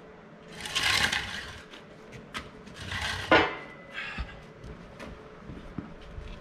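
Two rasping scrapes, each about a second long and roughly two seconds apart, the second ending in a sharp knock.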